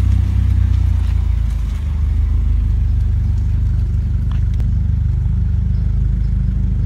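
Mercedes-Benz C300 (W205) 2.0-litre turbocharged four-cylinder running at a steady idle through an ARMYTRIX valved exhaust, a constant low drone.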